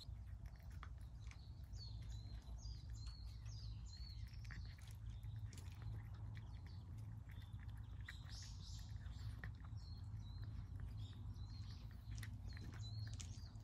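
A cat eating from a plate, chewing and crunching kibble and wet food in small irregular clicks. A bird chirps repeatedly in short falling calls, in several bursts, over a steady low hum.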